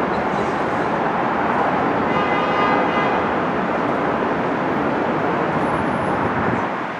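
R160 subway train running along an elevated steel track on a curve, a steady loud noise of wheels on rails. A faint pitched tone sounds briefly about two seconds in, and the noise eases a little just before the end.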